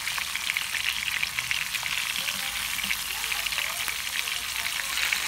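Rolled beef steaks searing in hot vegetable oil in a frying pan: a steady sizzle with dense fine crackling. The meat is being browned only on the outside.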